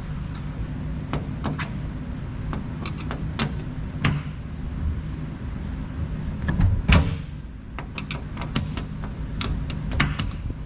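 Steady low hum of a running machine motor, with irregular clicks and knocks throughout and a louder knock about seven seconds in.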